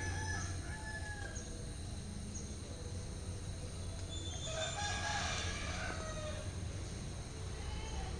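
A rooster crows once, a call of about a second and a half starting about halfway through. Before it come a few faint short chirps.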